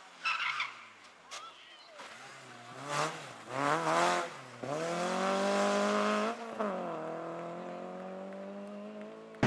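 Renault Clio rally car's engine working through a corner: the revs dip twice as it brakes in, then rise hard as it accelerates out. After one upshift the note falls away as the car drives off.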